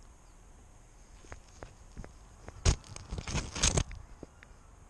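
Close scuffing, crackling and knocking picked up by a GoPro worn by a cat as the cat moves. There are a few scattered clicks, then a loud cluster of knocks and scrapes about two and a half seconds in that lasts about a second.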